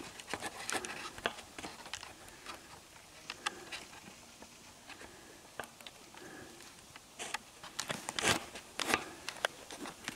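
Irregular rustling and crackling of dry leaves and twigs on the forest floor, with sharp snaps. They come thickly near the start and again from about seven to nine and a half seconds in, where the loudest cracks fall.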